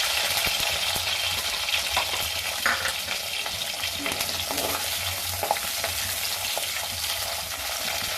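Small onions (shallots) frying in hot sesame oil with mustard seeds and curry leaves: a steady sizzle, with scattered short taps and scrapes of a spoon stirring in the pan.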